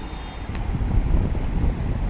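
Air buffeting the microphone: a loud, uneven low rumble.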